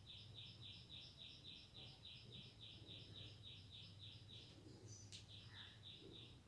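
Faint, rapid, even series of high chirps, about five a second, breaking off briefly with a single sharp click a little after the middle, over a low steady electrical hum.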